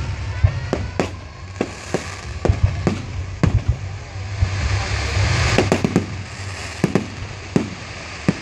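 Fireworks going off overhead: a dozen or so sharp bangs of bursting rockets and aerial shells at uneven intervals, bunching together about five to six seconds in. Under them run a steady low rumble and a hiss that swells midway.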